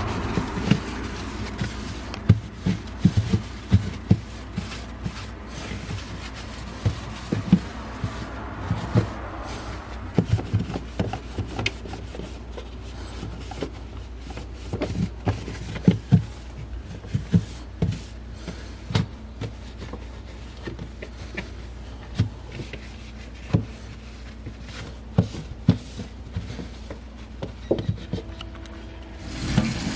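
Irregular knocks, clinks and rubbing as containers, shelves and other items are handled and wiped while a refrigerator is cleaned out, over a low steady hum.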